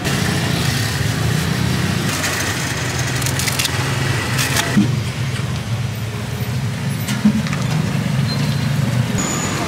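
Road traffic: a steady hum of passing motorbikes and cars, with two brief knocks, one about halfway through and one near the end.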